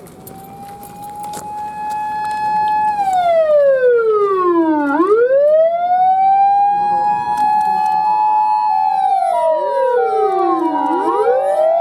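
Japanese fire-brigade vehicles' sirens starting up: a wailing tone winds up, holds high, then slowly falls and rises again in cycles of several seconds. About seven seconds in, a two-tone hi-lo siren joins, and further wailing sirens overlap near the end.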